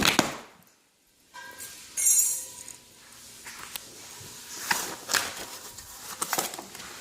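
Cardboard box being cut open with a knife and handled: a short hissy scrape about two seconds in, like a blade slicing through packing tape, then scattered knocks and rustles of cardboard and packaging.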